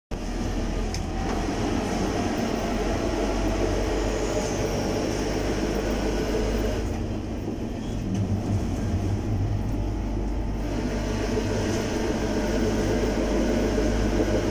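Konstal 105Na tram running along the track, heard from inside the driver's cab: the steady running noise of its wheels on the rails and its motors.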